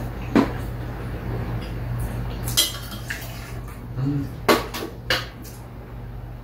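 Metal spoons and chopsticks clinking against a stainless steel bowl and metal tray while eating, with about four sharp clinks. The loudest comes about four and a half seconds in.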